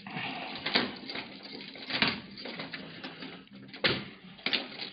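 A few sharp clicks and knocks, about four, spread over a few seconds above a steady hiss.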